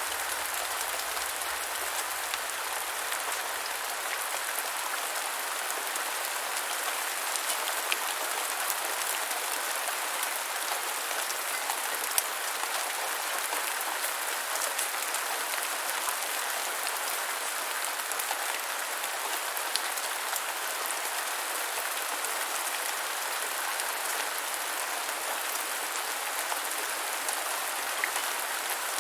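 Steady medium rain falling on a surface, an even hiss with individual drops ticking through it.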